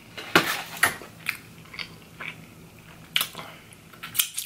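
Close-up chewing of a mouthful of Cheez-It stuffed-crust pizza, with short crunches and mouth smacks coming irregularly, about every half second.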